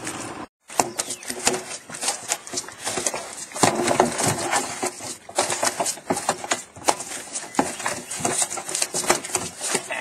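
Irregular knocks, thumps and rattles of a hoop net full of catfish being handled against a boat, with the fish moving inside it. The sound cuts out briefly about half a second in.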